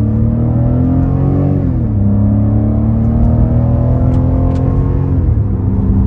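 BMW F90 M5's twin-turbo V8 accelerating, heard from inside the cabin: the engine note climbs steadily, drops sharply at an upshift nearly two seconds in, then climbs again and drops at a second upshift about five seconds in.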